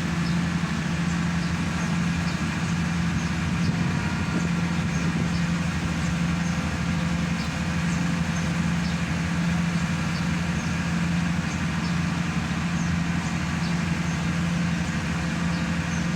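Hydraulic static pile driver's engine and hydraulic power pack running steadily at a constant pitch.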